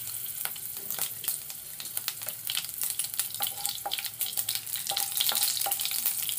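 Panch phoron seeds and chillies sizzling and crackling in hot mustard oil in a kadai: a steady hiss with many sharp pops, denser and a little louder in the second half. This is the tempering (tadka) stage, the seeds crackling in oil hot enough to temper them. A wooden spatula stirs through the oil in the second half, scraping the pan briefly a few times.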